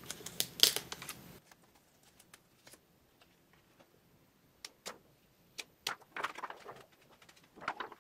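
Paper and a clear plastic overlay sheet being handled on a tabletop: light rustles, taps and clicks, with a cluster in the first second or so, scattered ticks in the middle, and more rustling around six seconds in and near the end.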